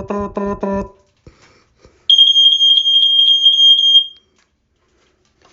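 A Code One CD23 smoke alarm's blue Murata piezo horn sounds one steady, shrill high tone for about two seconds, starting about two seconds in. Before it, in the first second, a low buzz pulses rapidly about five times a second.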